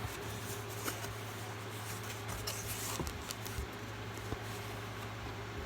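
Hands opening and handling a shipping package: scattered small clicks, taps and a short rustle of packaging, over a steady low hum.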